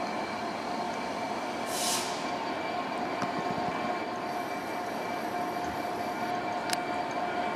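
Class 66 diesel locomotive running as it approaches, a steady hum with a high held tone over it. A short hiss comes about two seconds in, and a sharp click near the end.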